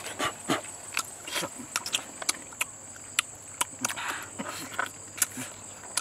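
Close mouth sounds of two people eating raw honeycomb: irregular wet chewing, lip-smacking clicks and short slurps.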